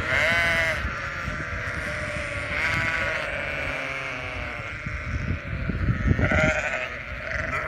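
A flock of sheep bleating: several baas, the loudest right at the start, another about two and a half seconds in and one more near the end.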